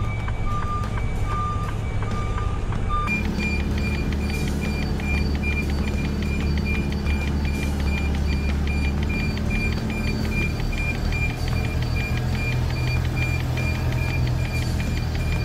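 Reversing warning beeps repeating evenly from a Mercedes-Benz tractor unit backing a container trailer, over the low drone of its diesel engine. About three seconds in, the beep switches to a higher, quicker tone of about three beeps a second.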